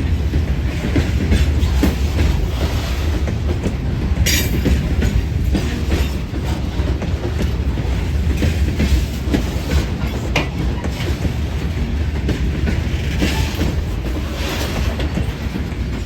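Railroad cars of a train rolling past: a steady low rumble with wheels clacking over rail joints and a brief high squeal about four seconds in.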